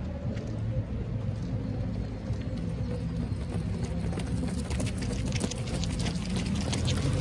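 Footsteps of a pack of runners on the path, a rapid patter of many feet that grows louder from about four seconds in as the runners reach and pass close by, over a steady low rumble of traffic and wind.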